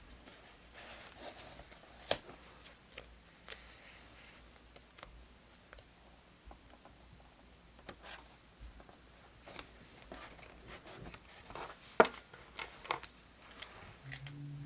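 Small handling sounds of diary decorating at a desk: scattered light clicks, taps and paper rustles at irregular intervals, the sharpest click about twelve seconds in. A brief low hum comes near the end.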